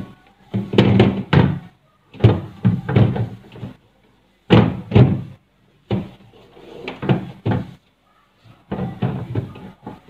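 Knocking, bumping and rubbing against the fridge's plastic shelves and compartments as its inside is wiped clean with a cloth. The noise comes in about six bursts with short pauses between them.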